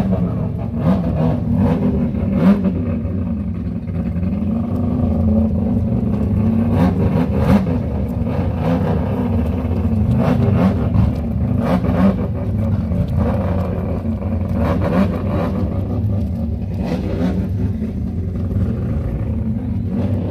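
Car engine running with a deep exhaust rumble, its pitch wavering slightly, with a few short sharp clicks scattered through it.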